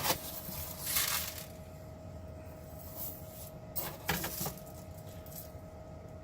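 Bulk aquarium charcoal pellets rattling as they are scooped out of a bucket and dropped into a filter media bag, in a few short clattering bursts about a second in and around four seconds in.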